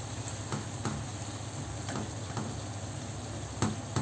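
Onion frying in butter and oil in a pan, sizzling steadily while a utensil stirs it, knocking against the pan about five times, the sharpest knock near the end.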